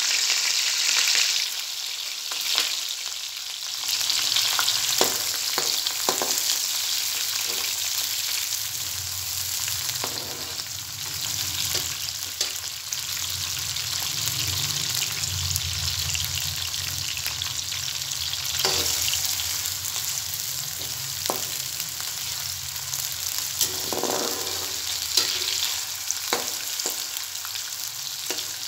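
Sliced onions sizzling in hot oil in a metal kadhai, loudest in the first second or so after they go in. A slotted metal spoon now and then clicks and scrapes against the pan as they are stirred.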